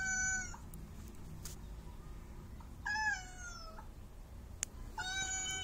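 Cat meowing: a drawn-out, high meow that ends about half a second in, another that sags slightly in pitch about three seconds in, and a third that starts near the end.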